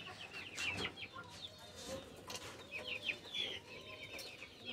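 A flock of chickens clucking and chirping faintly, many short high calls several a second.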